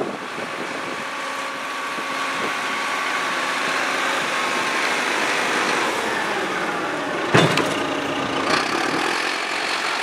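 Wheel loader's diesel engine running steadily as the machine drives on snow, with a steady whine over it. A sharp clank about seven seconds in, and a lighter one a second later.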